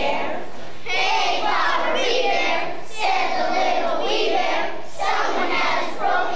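A group of kindergarten children singing together in unison, in short phrases about a second apart.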